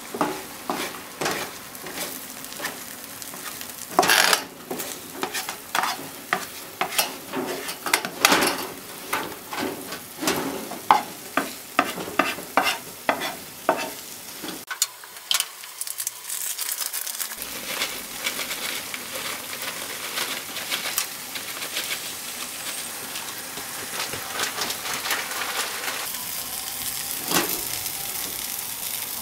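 Egg, tomato and cheese omelet sizzling in a nonstick frying pan while a spatula scrapes and pushes it, with many quick scraping strokes for about the first fifteen seconds. After that the frying settles into a steady sizzle with only an occasional knock of the spatula.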